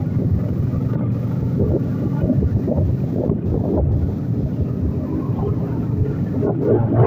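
A Bajaj motorcycle's engine running steadily at low road speed, heard from the rider's seat, with wind rumbling on the microphone.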